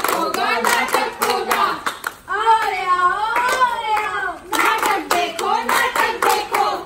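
A group of people clapping their hands in a steady beat while chanting together, as performers do to open a nukkad natak street play.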